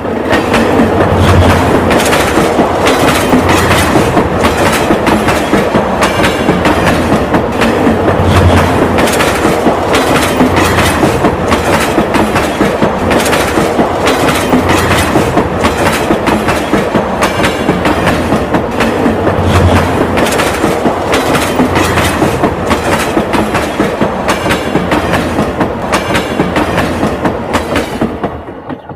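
Train wheels clattering over rail joints in a loud, fast, steady clickety-clack over a low rumble, dying away near the end.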